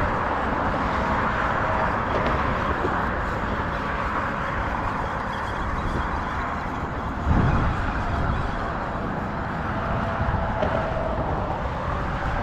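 Steady road-traffic rumble and wind noise from the bridge, with a short low thump about seven seconds in.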